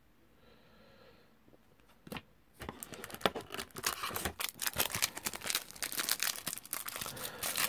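Match Attax trading-card pack wrapper being torn open and crinkled by hand, starting about two seconds in with a short rip, followed by dense, rapid crackling.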